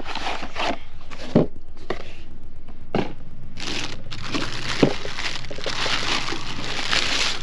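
Clear plastic packaging bag crinkling and rustling as it is handled and pulled open, with three short sharp knocks, about a second and a half apart, as items are handled on the table.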